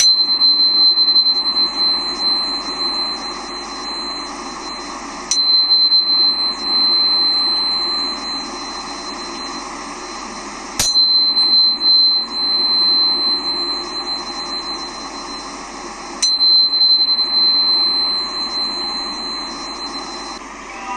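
Angel harp, a sound-healing instrument, struck four times about five seconds apart. Each strike gives a sharp click and then a single high, pure ringing tone that sustains until the next strike.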